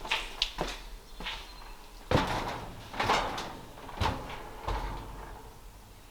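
Footsteps and knocks on a hard floor, about one a second, the loudest about two seconds in.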